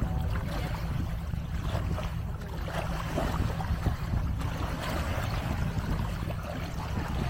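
Wind buffeting the microphone in a steady low rumble, over the wash of Lake Superior water on the shore.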